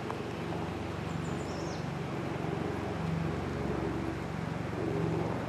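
Vehicle engine running low and steady, with a light wash of outdoor noise. A short, high descending chirp about a second in.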